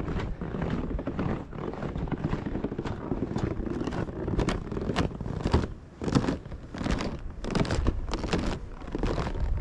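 Wind buffeting the microphone in irregular gusts, a rumbling noise with frequent short crackles, with a brief lull about six seconds in.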